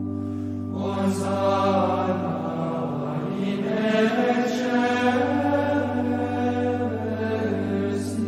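Background music: slow chanted singing over a steady low drone, the voice entering about a second in.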